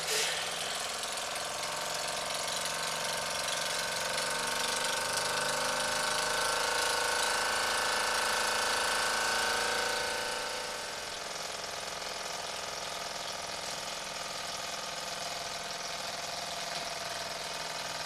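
Court Lodge Mk1 toy steam engine running fast, its oscillating cylinder's trunnion bolt freshly tightened: a steady hiss of steam with a whir from the spinning crank and flywheel. It runs louder for about the first ten seconds, then settles a little quieter.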